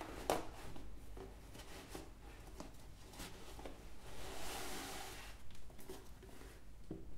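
Packaging being handled while the collectible is unboxed: a sharp tap or click near the start, a few light clicks, and a longer sliding, rubbing sound about four to five seconds in.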